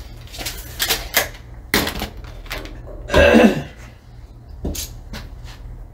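Clicks and knocks from handling a tape measure and cable cutters on heavy battery cable, with one longer, louder noise about three seconds in as the cutters work on the cable.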